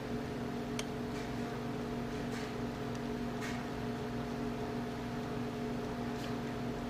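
A steady hum holding a few fixed tones over faint hiss, with several faint ticks scattered through it.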